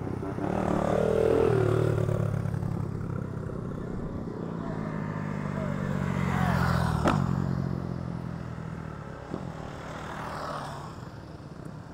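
Small dirt-bike engines riding past one after another, the sound swelling as each bike comes close and fading as it goes by, with a sharp click about seven seconds in.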